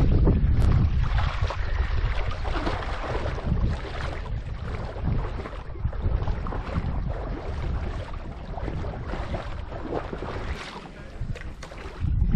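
Water splashing and sloshing around a board on the sea, with wind buffeting the microphone, easing for a moment about ten seconds in.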